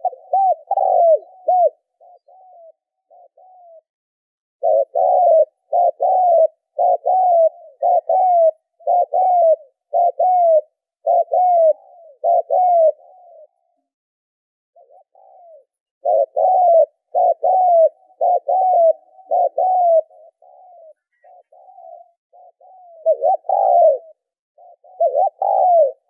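Spotted dove cooing: runs of short, repeated coos, some loud and some softer, broken by pauses of one to two seconds.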